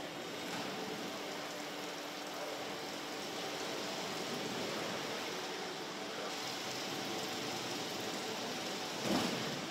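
Steady hiss of factory-hall noise with a faint low hum from car-production-line machinery, and a brief louder noise near the end.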